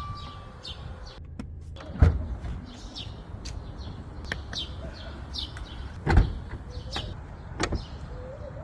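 Maserati Ghibli with a steady low hum running. Two heavy thumps come about two and six seconds in, amid scattered light clicks and short high chirps.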